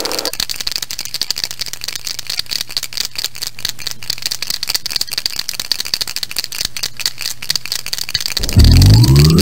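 Paint marker being shaken, its mixing ball rattling in rapid clicks over a steady high hiss. About eight and a half seconds in, a loud raygun sound cuts in: several tones sweeping upward in pitch together.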